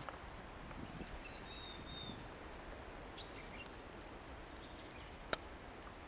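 Faint, steady outdoor ambience with a few faint, high bird chirps in the first couple of seconds, and a single sharp click about five seconds in.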